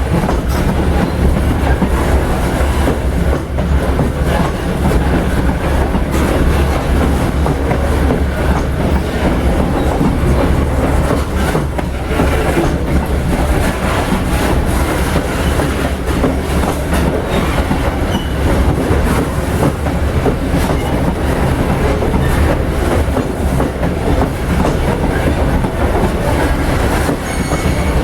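Loaded freight wagons rolling past steadily, wheels clacking over the rail joints with a continuous heavy rumble.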